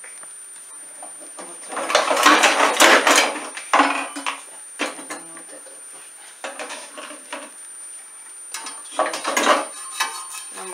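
Several short bursts of clatter and rustling, the loudest a few seconds in, then near the end a metal spatula scraping under a pancake in a steel frying pan.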